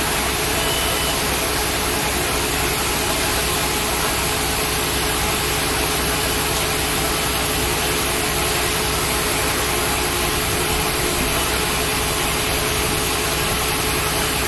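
Hydraulic power pack of a motor stator splitting machine, its electric motor and pump running steadily with a constant hum and whine while the hand levers drive the cutters through a stator.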